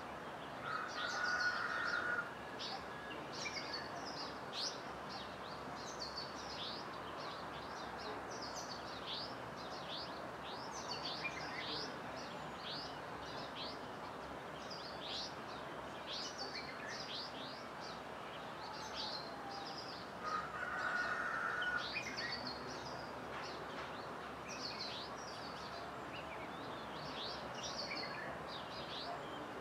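Dawn chorus of many birds chirping: a steady run of short, quick, falling chirps over a constant background hiss. A short louder buzz comes about a second in and again about two-thirds of the way through.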